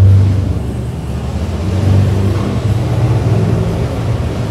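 A low rumbling hum, loudest at the start and again about two seconds in.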